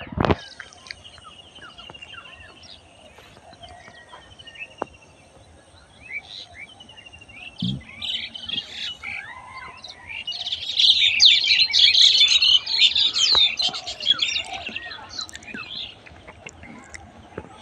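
Many birds chirping and twittering, a dense burst of overlapping calls from about ten seconds in that is the loudest part, then thinning out. A sharp knock right at the start and a soft low thud about eight seconds in.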